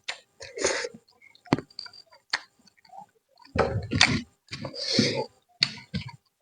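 A person eating chicken and rice: irregular chewing and mouth smacks with a few sharp clicks, broken by short pauses.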